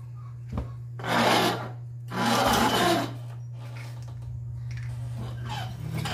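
Sofa section dragged across a tiled floor: a knock, then two loud scrapes of about a second each, followed by softer shuffling, over a steady low hum.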